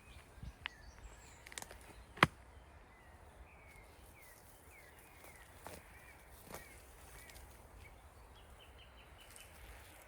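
Birds chirping with short, repeated calls over a low outdoor background, ending in a quick run of chirps. One sharp click about two seconds in stands out as the loudest sound.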